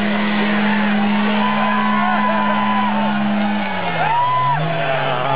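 A motorcycle engine held at steady high revs, which drop and pick up again near the end, under a crowd whooping and shouting.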